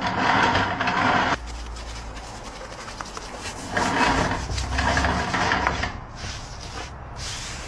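Rough scraping on tyre rubber in two spells of about two seconds each, with a quieter stretch between them.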